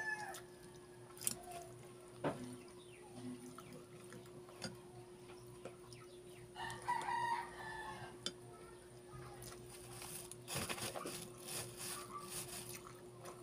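A rooster crows once in the background, about seven seconds in, a call of about a second. Around it are faint clicks and crinkles of a plastic bag being handled while food is eaten by hand, over a steady hum.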